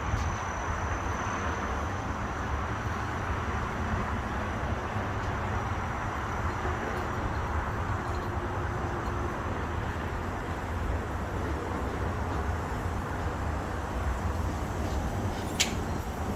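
An engine running steadily with a constant hiss over it; a single sharp click near the end.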